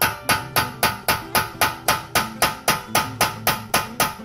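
Hammer striking a steel punch set in the centre of a BMW E46 325xi's front CV shaft end, in steady even blows about three a second, each a sharp knock with a short ring. The blows drive the shaft back out through the wheel hub, where these shafts often rust in place.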